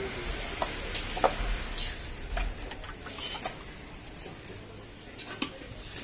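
Scattered light clicks and knocks of parts and tools being handled, with a brief high squeak about three seconds in; the chainsaw is not running.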